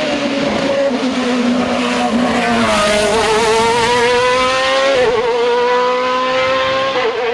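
Hill-climb race car engine at high revs, its pitch climbing steadily as it accelerates, with a quick upshift about five seconds in and another near the end.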